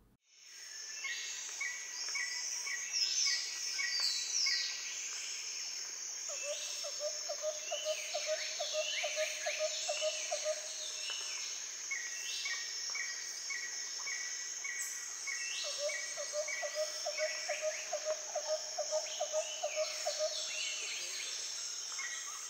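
Natural ambience of insects and birds: a steady high insect drone, with rows of short repeated chirps and falling whistled bird calls. A lower pulsing trill comes in twice, each run lasting about four seconds.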